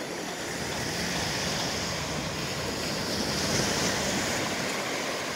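Small sea waves washing onto a sandy beach: a steady hiss of surf that swells a little past the middle.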